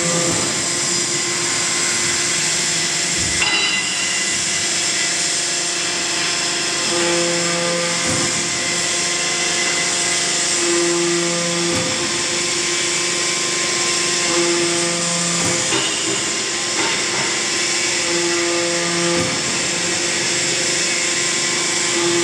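20-ton hydraulic forging manipulator running, a steady loud hiss and machine hum, with a deeper humming tone that swells for about a second every three to four seconds as the tongs shift the steel block.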